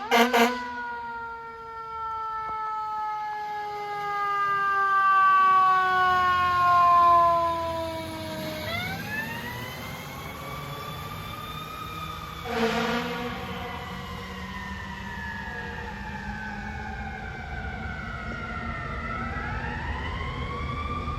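Fire truck siren sliding slowly down in pitch, then winding back up about 9 seconds in and again near the end. Short fire-truck air horn blasts come at the very start and about 12 seconds in, over the low rumble of the truck's engine.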